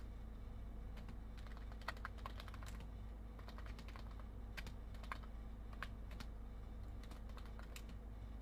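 Typing on a computer keyboard: scattered, irregular key clicks, a few at a time, over a steady low hum.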